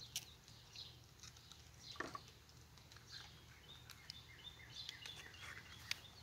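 Quiet scene of faint birdsong, with a few light clicks and taps from eggs being cracked and a fork working in a plate.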